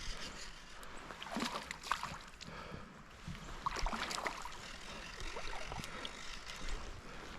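Creek water splashing and sloshing in short, irregular bursts, strongest about a second and a half in and again around four seconds in, over a faint steady hiss of the stream.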